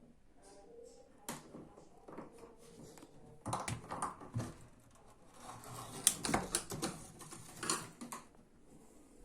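Irregular clicks, knocks and light rattles of tools and washing machine parts being handled. They come in loose clusters and are loudest about six seconds in.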